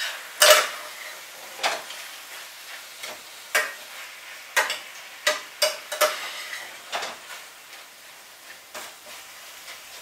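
A utensil scraping and knocking against a frying pan as chicken pieces coated in green curry paste are stirred, in irregular strokes about one a second that grow weaker toward the end. A faint sizzle of the frying meat runs underneath.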